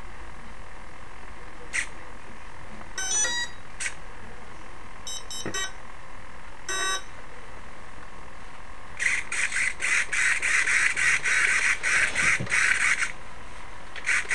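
Brushless ESC beeping through the motor after the LiPo battery is plugged in: a few single beeps and short runs of tones, its power-up and arming signals. From about nine seconds in, the aileron servo buzzes in a quick series of short movements, and it starts buzzing again near the end.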